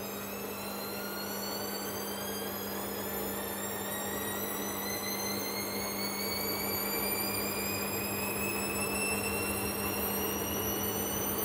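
Hisense front-loading washing machine on its spin cycle: the motor whine rises steadily in pitch as the drum gathers speed, over a steady low hum.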